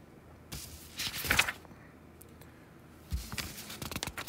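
Quiet room tone broken by a few scattered soft knocks and clicks, with a closer run of them in the last second or so.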